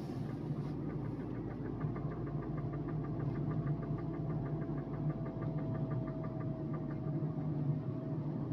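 Tata Tigor CNG car on the overrun, slowing from about 55 km/h, with a fast run of ticks ("tak tak tak") from a wheel, about once per wheel turn, over the road and engine noise, plus a faint whine that drops slightly in pitch. The noise comes only while decelerating and stops when the accelerator or clutch is pressed; its cause is undiagnosed.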